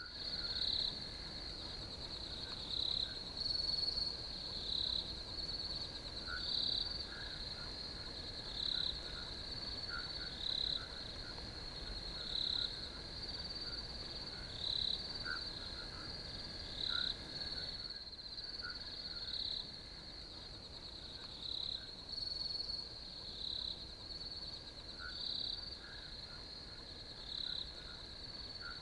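Crickets chirping: a steady high trill with louder chirps every second or two, and fainter lower chirps among them.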